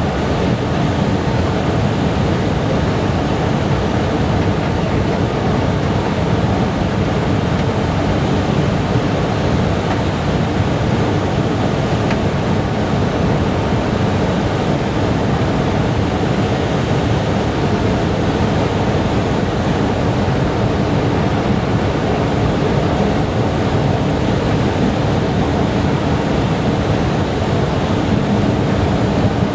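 A long subway-station escalator running: a steady, even rumbling noise with a faint hum, with no distinct clicks or voices.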